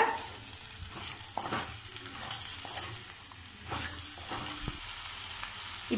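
Wooden spatula stirring and scraping chopped vegetables around a clay pot, with a few knocks against the pot, over a sizzling hiss of the vegetables in hot coconut oil.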